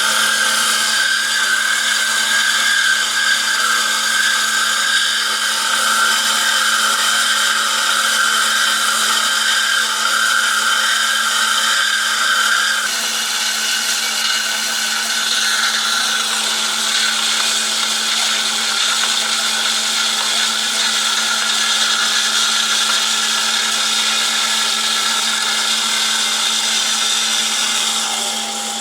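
PEGAS 290 A-CNC-F automatic band saw running: a steady low hum under a higher mechanical whine. The whine changes character about halfway through, and the sound drops a little near the end.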